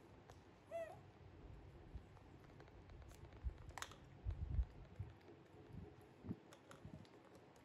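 Faint, short high squeaks from a baby macaque, one about a second in and another near the middle, among a few soft low thumps.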